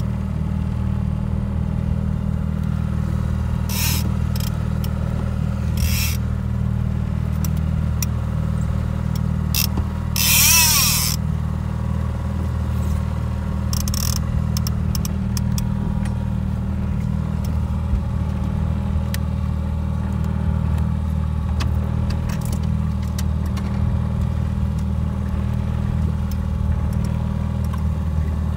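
Mercury outboard motor running steadily while the boat is under way, a low drone, with scattered light clicks and a brief rushing noise about ten seconds in.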